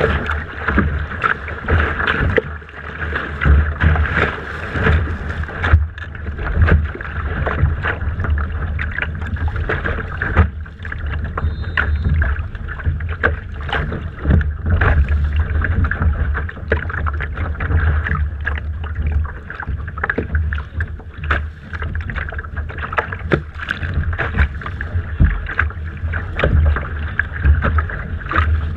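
Wind rumbling on a deck-mounted camera's microphone aboard a Laser sailing dinghy, with water slapping and splashing against the hull in frequent, irregular knocks.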